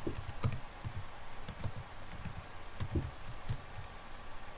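Typing on a computer keyboard: irregular single keystrokes as a word is typed.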